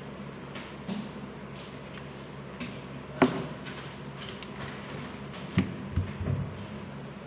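Craft tools being picked up and set down on a tabletop: a handful of short knocks and taps, the loudest about three seconds in and a small cluster near the end, over a steady low hum.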